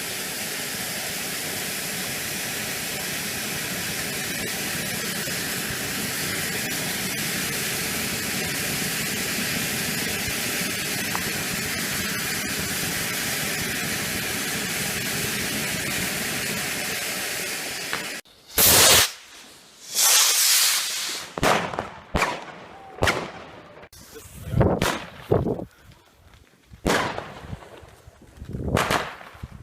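A long steady hiss for about eighteen seconds. It stops abruptly and gives way to a string of about eight sharp firework bangs at irregular intervals, the first two the loudest.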